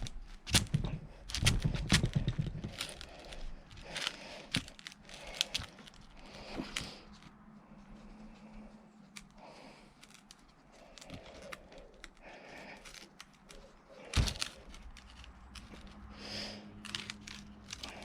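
Rope being pulled tight by hand around a magnet's eyelet to finish the knot: rustling and creaking of rope with scattered clicks, and one sharp knock about fourteen seconds in.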